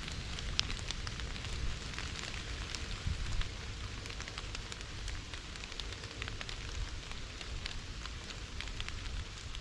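Steady rain pattering, with many sharp individual drops ticking close by, over a low rumble.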